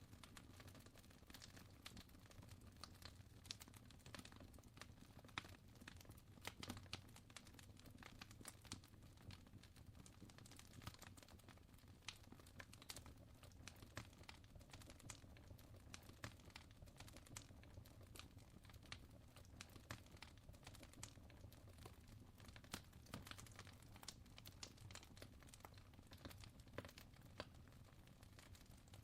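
Fire crackling: many small, irregular pops and snaps, a few louder than the rest, over a faint steady low rumble.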